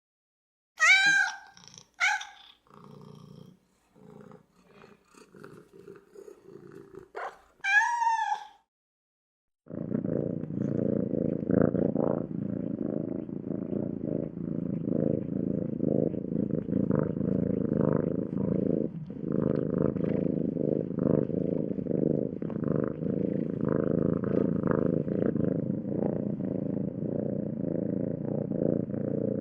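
Domestic cat meowing: two short meows about a second apart, a few faint sounds, then another meow. After a brief silence, about ten seconds in, a steady low purr starts and continues.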